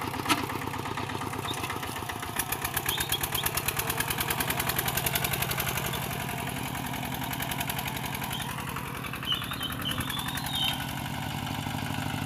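Single-cylinder diesel engine of a two-wheel walking tractor running with a fast, even beat just after a hand-crank start. There is one sharp knock right at the start, and the beat grows louder for a few seconds from about two seconds in before settling again.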